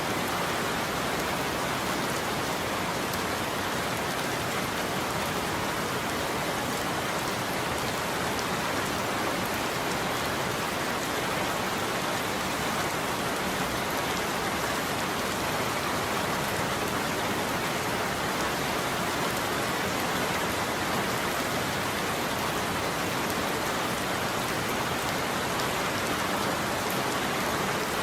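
Steady heavy rain falling on a surface, an even hiss with scattered drop ticks.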